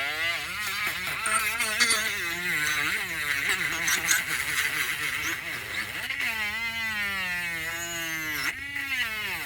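Electric sander running continuously, its motor pitch wavering up and down as it works, with a long slow drop about six seconds in and a quick rise near the end.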